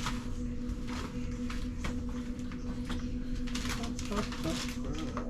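Rustling and light knocks of things being rummaged through and handled, over a steady low electrical hum.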